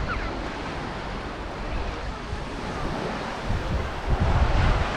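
Waves breaking on a sandy beach, with wind buffeting the microphone in low rumbling gusts that grow stronger near the end.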